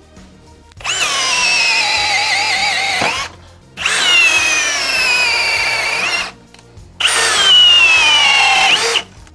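Cordless brushless hammer drills (Ryobi, Ridgid and Milwaukee) in turn boring a 1-inch flex auger bit into a wooden beam. There are three runs of motor whine, each sinking a little in pitch as the bit loads up, each about two seconds long, and the last is shortest.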